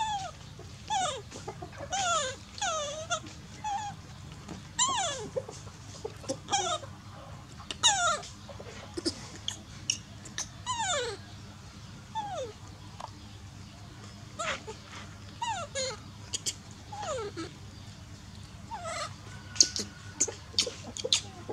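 Baby monkey giving repeated high-pitched whimpering cries, each falling steeply in pitch, over and over. A few sharp clicks come near the end.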